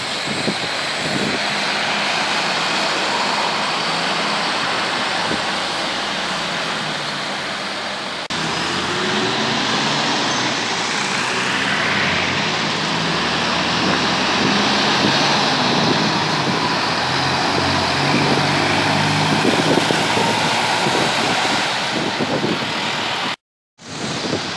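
City buses' diesel engines running as they turn and pass along the street, over steady road-traffic noise. The sound drops out briefly near the end.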